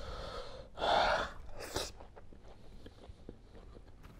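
A person's loud breathy huff about a second in, followed by a shorter sharp puff of breath, with faint chewing around them, from someone eating with a full mouth.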